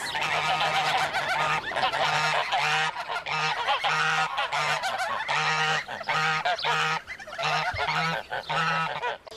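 A flock of domestic geese honking, many calls overlapping one after another without a break.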